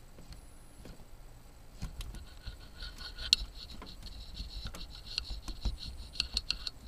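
Samsung travel charger with a shorted cable making an irregular crackling buzz that starts about two seconds in, full of fine clicks over a low hum. It is the sound of the dead charger, which the owner guesses may come from a capacitor inside.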